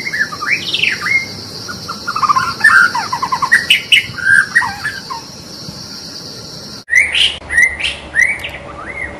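White-rumped shama singing: a run of varied, rich whistled phrases over a steady high hiss. After an abrupt cut about two-thirds of the way through, four separate rising whistled notes follow.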